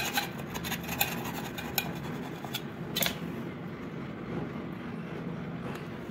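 A metal blade scraping across glazed ceramic wall tile in short, irregular strokes, working at stuck glue residue; the scraping stops about three seconds in. A steady low hum continues underneath.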